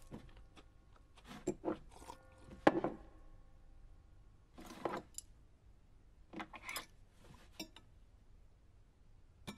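Sparse cutlery and dish sounds: a handful of short clinks, scrapes and rustles of forks and plates at a table, the loudest nearly three seconds in.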